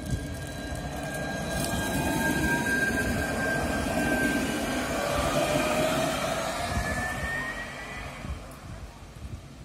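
Alstom Citadis 302 tram passing close by: electric traction whine with tones that glide upward in pitch, over wheel-on-rail rumble that swells in the middle and fades away near the end.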